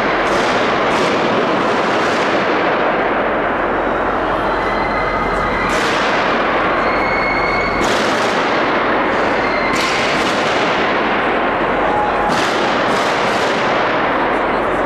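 Gunshots echoing through a large station hall: sharp bangs at irregular intervals, one to a few seconds apart, each with a long ringing tail, over a constant loud din.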